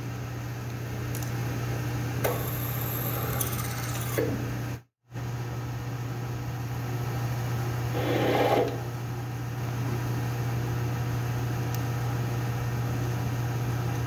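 Machine tool running with a steady motor hum, cutting metal, with short scraping sounds about two to four seconds in and a louder one about eight seconds in.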